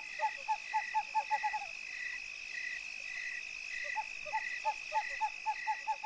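Night-time nature ambience: a steady high insect drone and a slower pulsing insect call, with two runs of short repeated animal calls, about four a second and quickening, near the start and again from about four seconds in.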